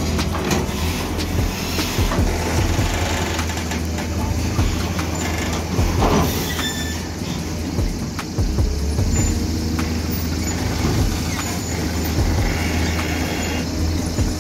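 Diesel engine of a full-size crawler excavator running steadily at working revs, a continuous low hum, with occasional short knocks.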